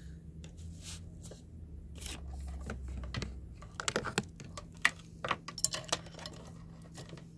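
Clicks and light knocks of hands plugging cables into and handling a V11 sound card, growing busier about four seconds in, over a low steady hum.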